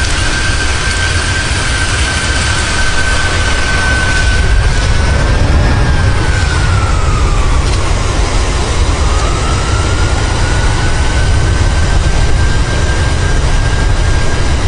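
Strong wind buffeting the microphone in a loud, steady rumble and rush, with a thin whining tone above it that sags in pitch about halfway through and then climbs back.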